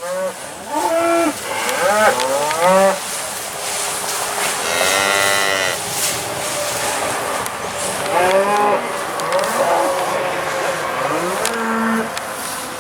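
Black Angus cattle mooing: about half a dozen calls, each around a second long, some overlapping, with a higher-pitched bawl about five seconds in.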